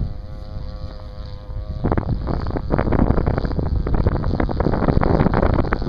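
Distant quarter-scale Piper Cub RC plane's 26cc two-stroke gas engine droning steadily in flight. About two seconds in, loud wind buffeting on the microphone covers it.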